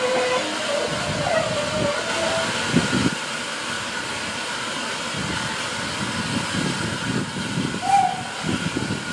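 Train hauled by a Hunslet Austerity 0-6-0 saddle-tank steam locomotive, heard from a carriage window as it runs slowly through a 5 mph speed restriction: a steady steam hiss over an irregular low rumble of the carriage wheels on the track, with a couple of louder knocks.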